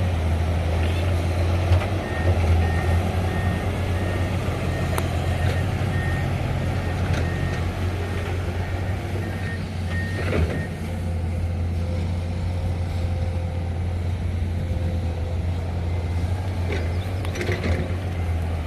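Heavy diesel truck engine running steadily, with a reversing alarm beeping about twice a second that starts about two seconds in and stops about ten seconds in.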